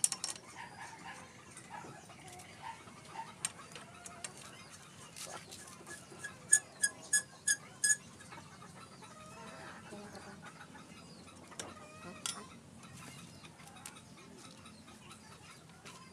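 Hand tools clinking and ticking against the rear shock absorber's lower mounting bolt on a motorcycle swing arm, with a quick run of about six sharp metallic clicks, about four a second, a little past the middle.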